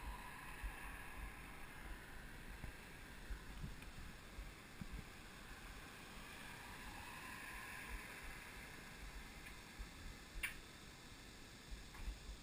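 Faint outdoor roadside ambience: a low steady hiss with scattered soft low thumps on the action-camera microphone, and two sharp clicks near the end.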